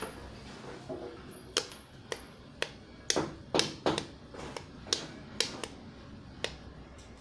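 Small plastic fidget toys and their blind-bag packaging being handled: irregular sharp clicks and taps, about fifteen, with a cluster of louder crinkly ones around three to four seconds in.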